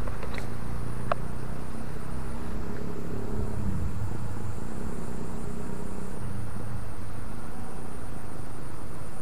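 Steady low rumble of a distant engine with a faint wavering hum, under a thin, steady high whine. There are two short ticks in the first second or so.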